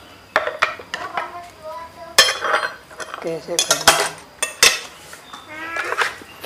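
Metal spoon and fork clinking and scraping against plates of noodles, with a series of sharp clinks as the dishes are knocked and moved on the table.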